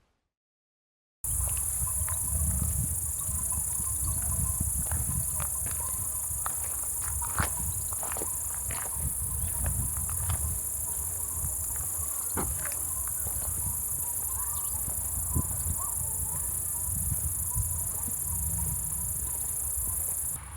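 A steady, high-pitched chorus of insects such as crickets or grasshoppers chirring in a meadow, starting about a second in and cutting off just before the end. Under it runs a low, uneven rumble of wind on the microphone, with a few faint clicks.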